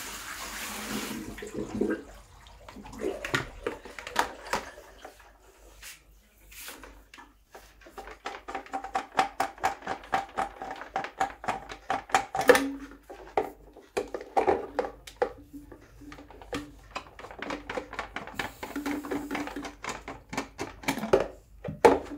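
A brief rush of water in the first second, then a long run of plastic clicks, knocks and rattling from handling the emptied housings of a reverse osmosis water filter.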